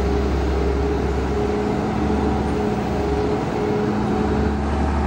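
Wheeled excavator's diesel engine idling steadily: a low, even drone with a faint steady hum.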